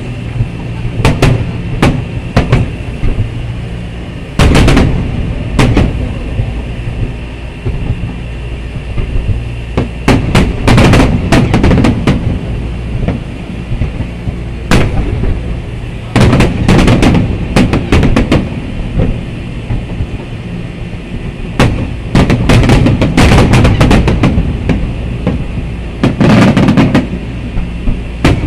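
Aerial fireworks shells bursting in an irregular rapid series of loud bangs, with dense volleys every few seconds, over a constant low rumble.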